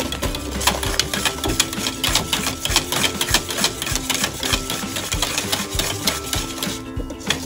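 Wire whisk beating custard cream in a copper pot: rapid, continuous clicking and scraping of the wires against the pot, with a brief pause near the end.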